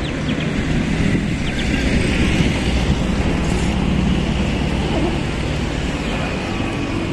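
Steady road traffic, cars running past, swelling briefly as one goes by about two to four seconds in.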